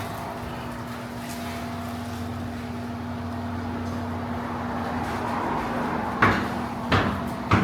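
A steady machine hum with a few low tones, then three sharp knocks near the end, about two-thirds of a second apart.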